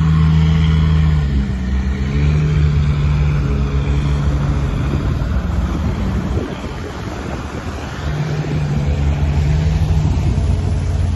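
4x4 SUV engine running under load on an off-road climb. Its note holds steady, dips briefly about a second in and recovers, breaks into a rough noisy stretch midway, then steadies again near the end.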